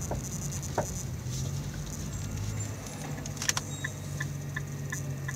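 Nissan GT-R's twin-turbo V6 running with a steady low drone as the car creeps along. There is a faint knock about a second in and a sharper double knock about three and a half seconds in: the front-end knock that the owner suspects comes from the heim joints of the front adjustable control arms. From about four seconds, an even series of short ticks runs about three a second.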